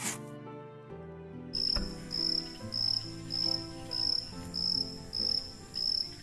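Cricket chirping in even pulses, about two a second, starting about one and a half seconds in, over soft instrumental music with sustained chords.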